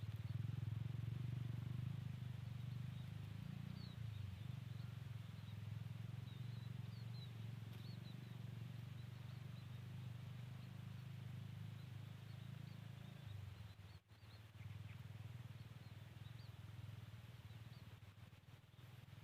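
A low, steady rumble, with faint short high chirps of small birds scattered through it.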